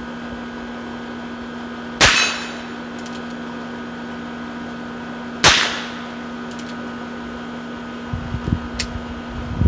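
Two shots from a .22 Heritage Rough Rider single-action revolver, about three and a half seconds apart, each a sharp crack with a short ring; the shooter calls them weak ass bullets. A steady air conditioner hum runs underneath.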